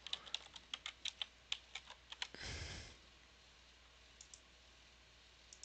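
Computer keyboard typing: a quick run of keystrokes for about two seconds, as a search word is typed in. A brief rush of noise follows, then a few faint clicks.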